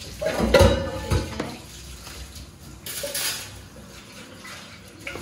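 Metal kitchen utensils and dishes clattering and clinking. A busy cluster of knocks with short ringing comes in the first second and a half, and a smaller clatter follows about three seconds in.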